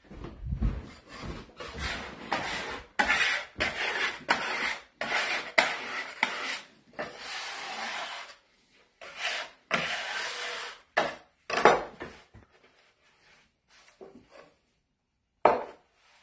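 Metal bench scraper scraping across a floured wooden pastry board, about a dozen rasping strokes in quick succession, then a few light taps and one last short scrape near the end.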